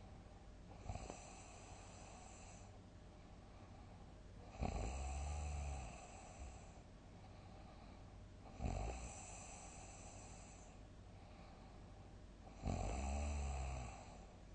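A person snoring loudly in deep sleep, one snore about every four seconds. Each snore starts suddenly. The first is faint and the three after it are loud and low-pitched.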